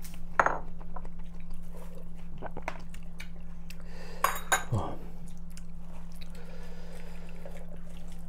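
Stainless-steel ladle clinking against a ceramic bowl and a takeaway container while noodles and broth are ladled out, with a few sharp clinks, the loudest about half a second in and two close together about four seconds in. A steady low hum runs underneath.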